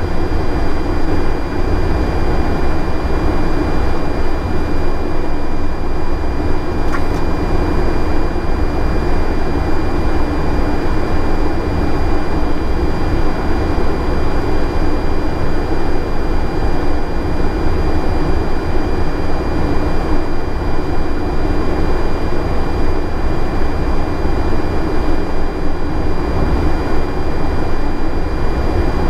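Steady cockpit noise of an Airbus A330-900 on final approach with the landing gear down: an even rush and low rumble, with two faint steady high-pitched tones running through it.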